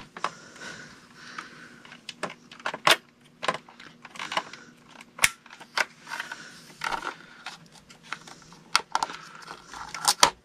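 Hands handling a telephone cord and plastic ties while fastening the cord in place: irregular rustling and scraping with a few sharp clicks, several in quick succession near the end.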